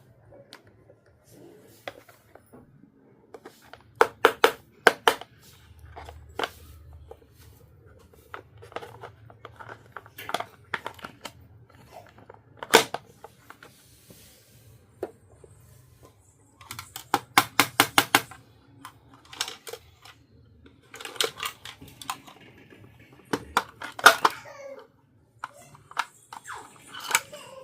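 Small plastic miniature toy pieces clicking and tapping together as they are handled, in quick runs of clicks at times, with a little rustling of packaging.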